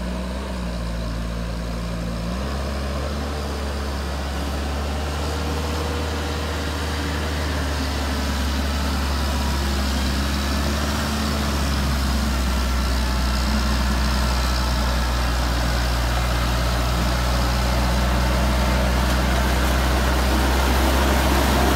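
Bombardier Muskeg MCD2 tracked carrier's Perkins turbo diesel engine running steadily, its note shifting about two seconds in, with water splashing around the tracks as it ploughs through flooded mud. The sound grows louder as the machine approaches.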